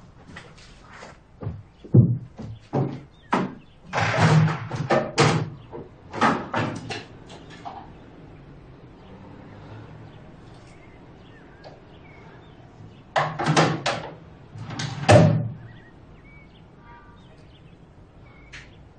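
A series of household knocks and thuds in two clusters: a run of sharp knocks and bumps over the first several seconds, then a few louder thumps about thirteen to fifteen seconds in.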